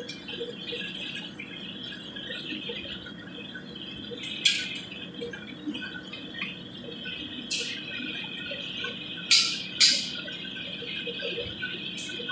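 Hot oil sizzling in a wok over a gas burner: a steady high hiss, broken by a few sharp clanks of the metal ladle against the wok. The loudest two clanks come close together about three-quarters of the way through.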